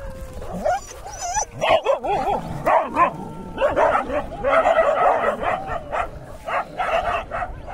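Street dogs barking and yelping in a scuffle, with wavering pitched cries, starting about a second and a half in and densest in the middle.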